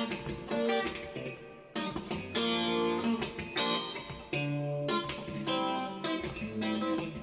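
Fender Stratocaster electric guitar with a clean tone, playing a short funky phrase of picked chords and notes with sharp attacks, in bursts separated by brief gaps.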